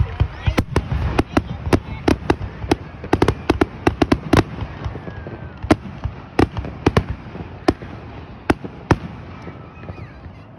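Fireworks going off: a rapid string of sharp cracks and bangs over a low rumble, thinning out after about four seconds and trailing off near the end.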